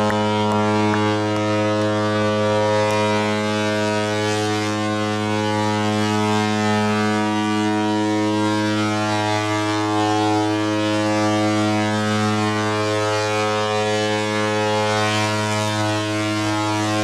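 The typhon horn of the cruise ship Mein Schiff 1 sounding one long, steady, low blast.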